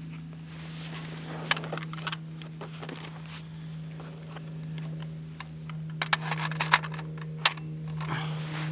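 Metal clicks and clinks of a Type 99 light machine gun's curved box magazine being picked up and fitted into the top of the receiver, with several sharp clicks between about six and seven and a half seconds in as it is seated. A steady low hum runs underneath.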